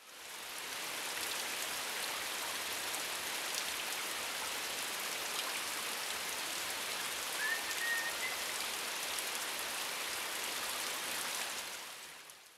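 Steady rain, fading in at the start and out near the end, with one short high chirp a little past halfway.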